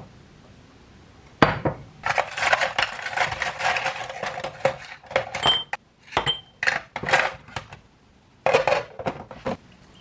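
Dishes and metal utensils clattering and clinking in irregular bursts, starting about a second and a half in, with a few short ringing chinks and brief pauses.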